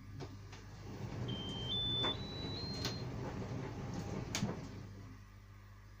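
Electrolux tumble dryer's drum turning, the clothes tumbling with an uneven rumble and a few sharp knocks, over a steady low hum. About a second in, the dryer sounds a short rising four-note electronic chime, typical of an end-of-drying signal.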